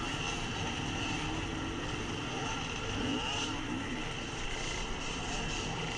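Several dirt bike engines idling close together while held up in a queue, with a few short throttle blips rising and falling.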